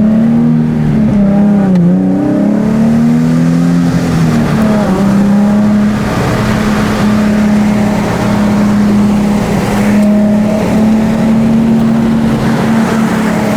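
Nissan 350Z's VQ35HR V6, fitted with a new cold air intake, running hard at high revs while driving. The engine note climbs briefly, wavers about two seconds in, then holds steady under load, with road and wind noise underneath.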